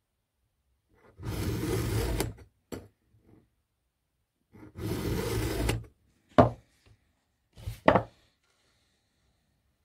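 A 3/16-inch round file in a file guide rasps across a chainsaw chain's cutter in two strokes of about a second each. Two sharp knocks follow near the end; they are the loudest sounds.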